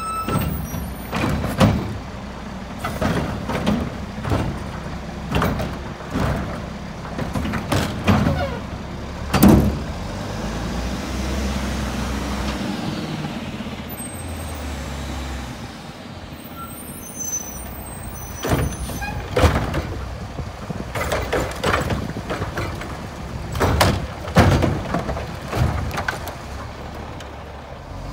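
Mack LE front-loader garbage truck with a Curotto-Can cart arm emptying curbside carts: repeated knocks and clatters of carts being grabbed, dumped and set down over the diesel engine. In the middle the clatter stops and the engine runs steadily as the truck drives on to the next carts, then the banging starts again.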